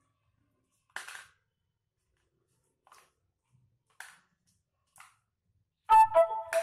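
A plastic bowl scraping and knocking on a tile floor as a parakeet pushes it, four brief scrapes a second or so apart, then a louder rattling clatter near the end as the bowl rocks and settles on the tiles.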